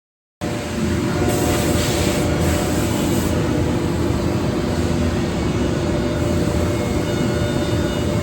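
Four-head, five-axis CNC wood router running, a steady mechanical noise with a few held tones over a broad hiss, starting abruptly about half a second in.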